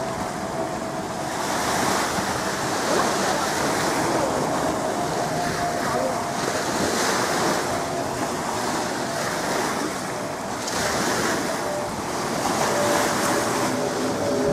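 River water washing against the Thames foreshore, swelling every few seconds, with wind on the microphone.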